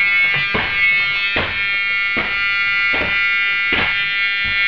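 A school bus's dashboard warning buzzer sounds one steady, high buzzing tone with the ignition key on and the engine not running. Under it are regular thuds, a little more than one a second, from walking down the bus aisle and pushing on the seat backs.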